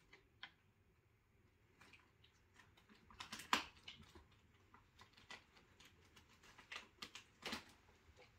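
Faint, scattered taps and light knocks of a cat's paws stepping about on the wooden top of an upright piano, with a louder tap about three and a half seconds in and a cluster of taps near the end.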